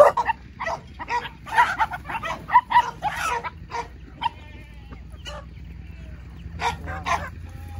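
Farmyard chickens squawking and clucking around feed. The short calls come thick and fast for the first few seconds, then grow sparser.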